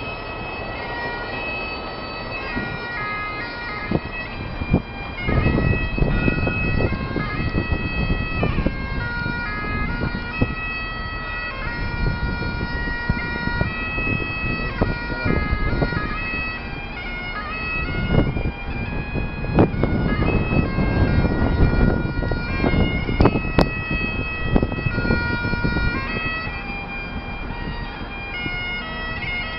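Bagpipes playing a tune: steady held notes that step from pitch to pitch, over a low rumble of street traffic.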